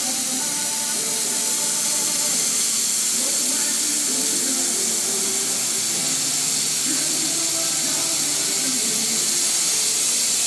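Laser cutting and engraving machine working on a wooden board: a steady hiss of air, with short whines from its drive motors that change pitch as the cutting head moves.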